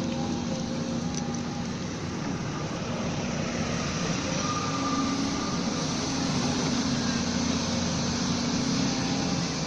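Volvo excavator's diesel engine running steadily, with a faint higher whine around the middle.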